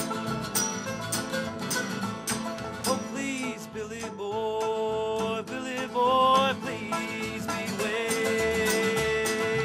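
Acoustic country band playing live: banjo, acoustic guitar and upright bass over a steady percussive beat, with singing. The beat thins out for a few seconds in the middle while long notes are held, then comes back near the end under another held note.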